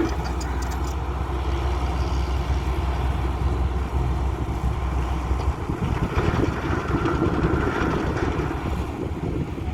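Diesel engines of heavy construction machinery running continuously. A steady deep hum fades about halfway through, leaving a rougher, more uneven engine sound.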